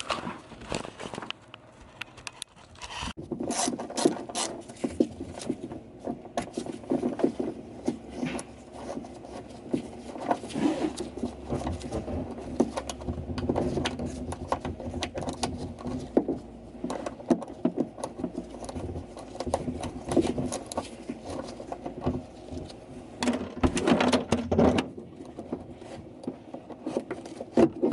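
Hand tool working a small 8 mm bolt loose from the relay on a car's convertible-top pump, with rapid, irregular clicking and scraping of metal on metal, busiest near the end.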